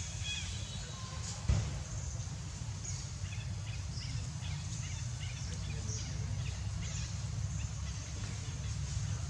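Outdoor ambience: a steady low rumble with short, high animal chirps and squeaks scattered throughout, and one sharp knock about one and a half seconds in.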